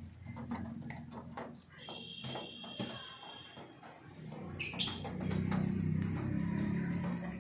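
Fantail pigeons cooing, low rolling coos that grow louder and more continuous about halfway through, with scattered light clicks.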